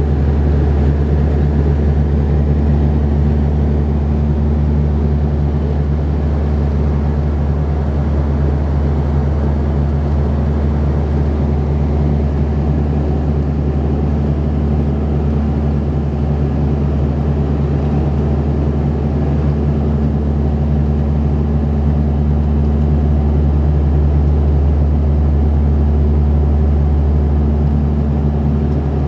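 Steady cabin drone of an Embraer EMB-120 Brasilia's twin turboprop engines and propellers in flight, heard from inside the cabin: a loud, even low hum with several held tones.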